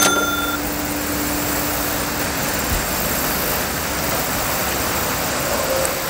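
A short cash-register ding right at the start, then a steady, even roar of distant motor traffic.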